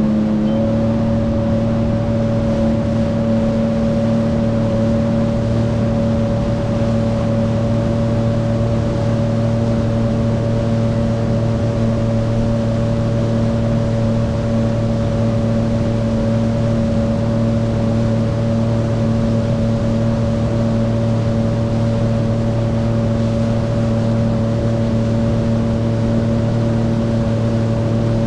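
Jet ski engine running steadily at cruising speed, with water rushing past the hull. The pitch steps up slightly about half a second in, then holds steady.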